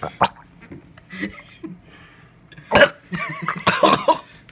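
A young man gagging in his throat: a sharp throaty burst a little past the middle, then about a second of wavering, strained vocal sounds.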